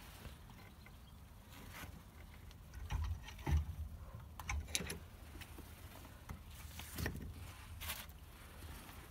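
Scattered light metallic clicks and clunks of brake parts being handled and fitted at a car's bare wheel hub and brake disc, the loudest knock about three and a half seconds in, over a low steady hum.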